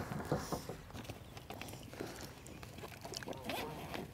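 Rummaging in a boat's storage compartment: scattered light clicks and knocks of tackle being moved about.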